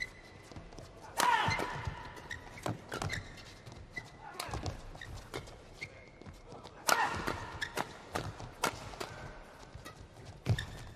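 Badminton rally: repeated sharp cracks of rackets hitting the shuttlecock and footfalls on the court, with two louder pitched sounds about a second in and about seven seconds in.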